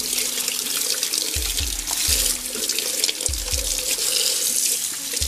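Tap water running steadily into a kitchen sink and splashing over a fish and hands as it is rinsed. Background music with a low, regular beat plays underneath.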